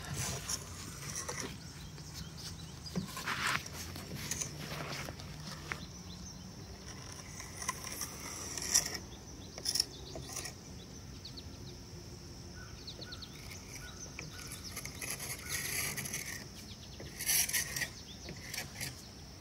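Quiet outdoor ambience: a faint steady high hiss, with scattered short knocks, clicks and rustles.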